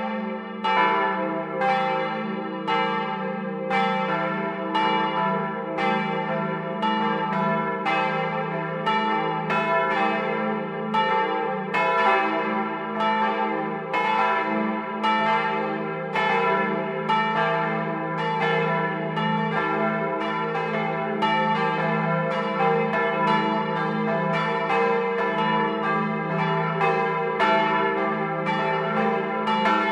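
Swinging bronze church bells cast by the Otto foundry of Hemelingen, rung by an electric ringing system and heard up close in the bell tower. Several bells sound together, with strikes about twice a second ringing over a steady low hum.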